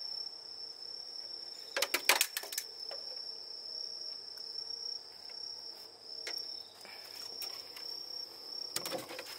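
Crickets chirring steadily in one continuous high note. A short burst of clattering clicks comes about two seconds in, and another near the end.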